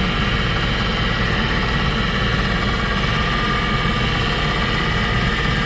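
Rear air-conditioning blower fan motor of a 2008 Toyota Kluger running steadily, with a hissing noise over several steady whining tones. The hiss comes from the motor's carbon brushes, which are not yet fully seated on the slip ring and should wear in with use.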